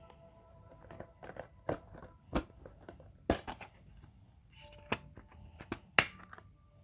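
Plastic DVD case being handled and opened: a string of irregular clicks and knocks, the loudest near the end as the disc is pressed off the case's centre hub.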